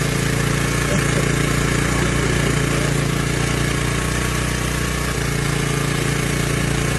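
An on-board engine idling with a steady, unchanging drone.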